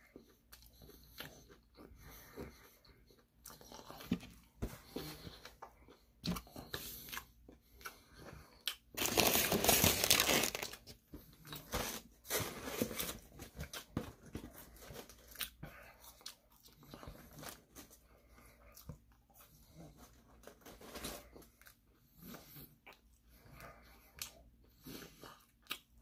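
Close-up crunching bites and chewing of crispy Korean fried chicken: many short, crisp crackles scattered throughout, with a louder, denser stretch of crunching about nine seconds in that lasts roughly two seconds.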